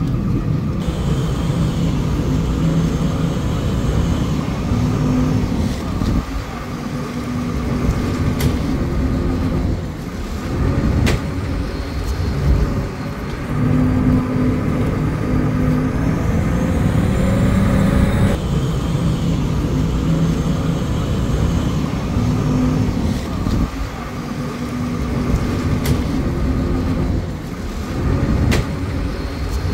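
A boat engine running steadily: a loud, low hum whose pitch shifts a little up and down, with a few brief clicks over it.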